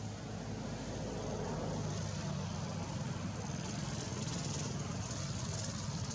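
Steady low hum of a running motor vehicle engine, growing a little louder in the first second or two.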